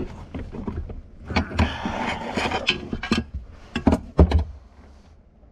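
Hands working plastic HVAC parts under a truck's dashboard: rustling and scraping with several sharp knocks and clicks, the loudest knock about four seconds in. The handling goes quieter near the end.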